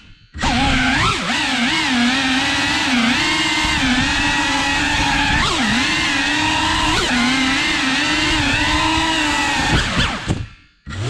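Cinewhoop FPV quadcopter's motors and ducted propellers whining, the pitch wavering up and down with the throttle. The motors cut out briefly just after the start and again about a second before the end, the whine falling away into each gap and climbing back.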